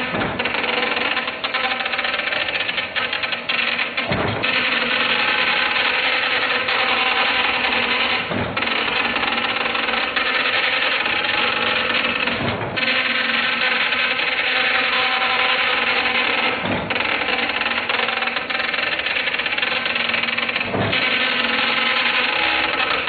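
Dot matrix printer printing: a steady, dense buzzing rasp from the print head, broken by a brief pause about every four seconds.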